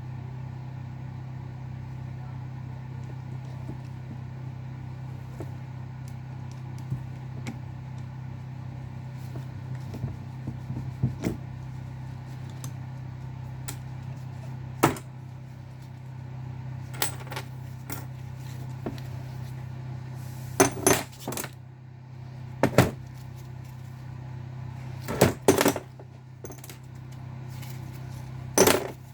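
Small metal engine parts, rocker arms and fittings being taken off a rocker shaft, clinking and clattering in short bursts of sharp metallic knocks. A steady low hum runs underneath.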